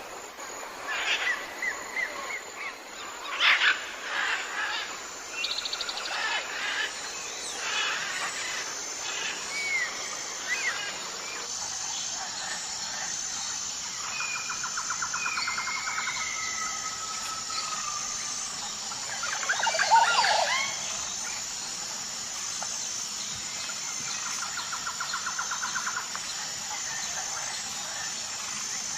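Mixed jungle birdsong: many birds calling at once, with whistled slides, rapid rattling trills and sharp chirps, a louder burst of calls about twenty seconds in, over a steady high-pitched hiss.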